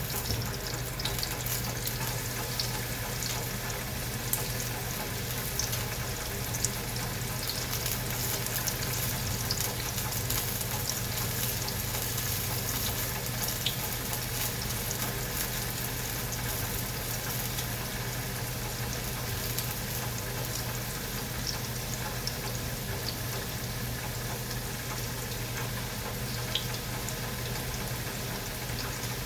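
Sausage sizzling in a frying pan: a steady crackle with scattered small pops, over a low steady hum.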